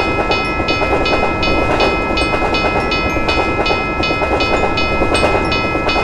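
Railroad crossing bell ringing steadily, about three strokes a second, over the rumble of a passing freight train of container cars.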